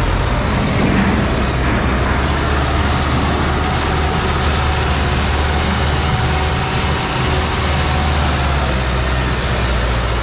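Sonalika tractor's diesel engine running steadily under heavy load as it pulls a fully loaded earth trolley up a steep sandy climb.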